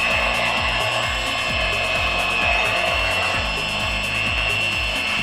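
Electric hand mixer running with a steady high whine, beating the eggs, cream and flour for macaroni and cheese.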